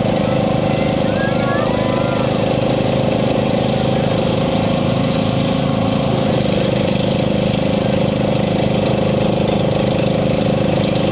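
Ford LT lawn and garden tractor's small engine running steadily as the tractor creeps forward in a pull.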